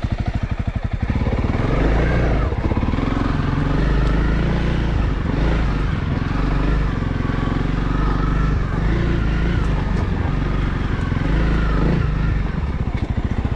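Honda CRF300L's single-cylinder four-stroke engine at a low, evenly pulsing idle. About a second in, it pulls away under throttle, its pitch rising and falling as the bike rides on.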